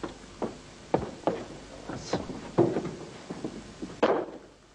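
A series of irregular knocks and clatters from a wooden door and its metal latch being worked, with the loudest clatter near the end.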